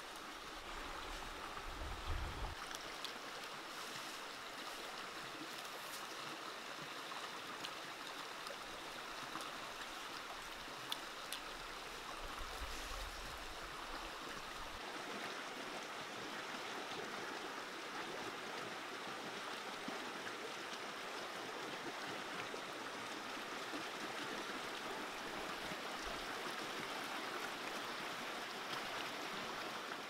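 Shallow stream running over rocks: a steady rushing of water.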